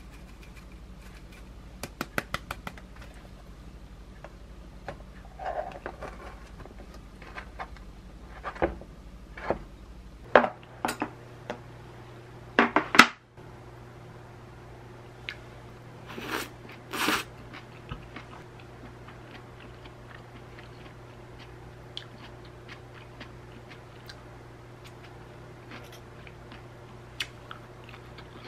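A spice shaker of dried parsley rattling in a quick run of shakes, then a few sharp knocks of the plastic lunch box being handled. Stainless-steel chopsticks then clatter twice against the plastic lunch box, followed by faint clicks and chewing.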